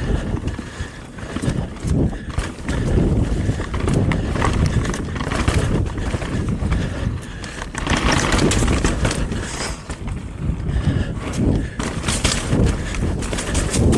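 Mountain bike riding a rooty forest singletrack: tyres rolling and the bike clicking and rattling over bumps, with the rider's heavy breathing in rhythmic puffs.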